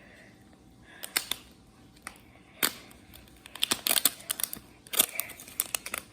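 Plastic wrapper crinkling and crackling in short bursts as it is handled and pulled open. It starts with a few scattered crackles, then turns into a denser flurry partway through.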